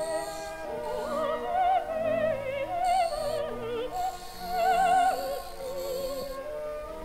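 Background music: operatic singing with a wide vibrato over sustained instrumental accompaniment.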